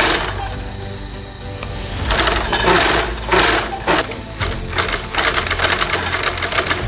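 Industrial post-bed sewing machine with a wheel presser stitching the edge of a baseball glove, its needle running in a fast, even chatter that gets louder from about two seconds in.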